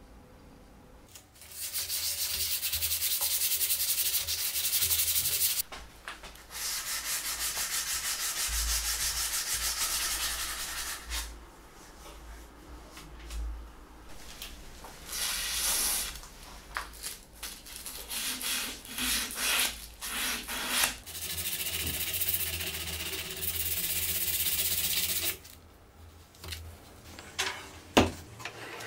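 Fine-grit sandpaper (P800 to P1500) rubbed over a rusty steel axe head in long runs of fast back-and-forth strokes, with short pauses between runs. A single sharp knock comes near the end.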